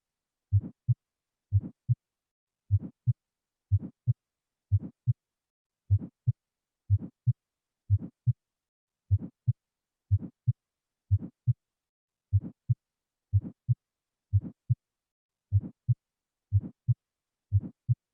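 Recorded heart sounds heard through a stethoscope: a steady lub-dub, one pair of beats about once a second, with silence between the pairs.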